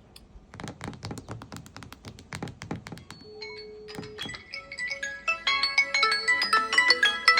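A quick run of sharp taps, then a Samsung Galaxy phone's ringtone starts about three seconds in: a couple of held single tones, then a quick melody of many short notes that grows louder.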